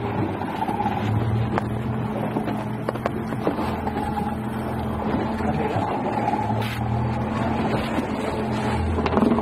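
Boat's outboard motor running steadily, a low even hum, with water and wind noise and a few short knocks.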